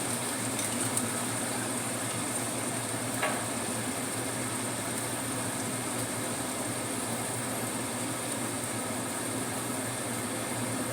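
Vegetables frying in hot oil with soy sauce and oyster sauce in a pan: a steady sizzle, with a small click about three seconds in.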